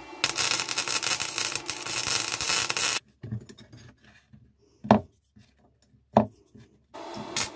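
MIG welder arc crackling for about three seconds while steel is welded onto the knife's tang end, then a short lull with two sharp knocks of the knife blade being handled on the steel-topped workbench, and the welding crackle starts again near the end.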